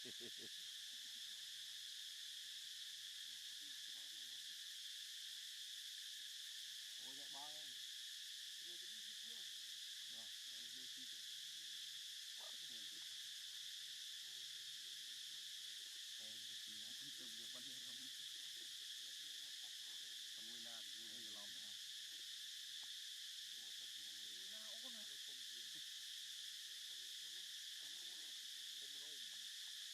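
Steady insect chorus: a continuous high buzzing drone that holds unchanged throughout.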